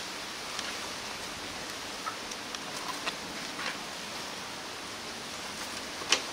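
Steady background hiss with light, scattered clicks and rustles from Rottweiler puppies moving on concrete and being handled, with one sharper click near the end.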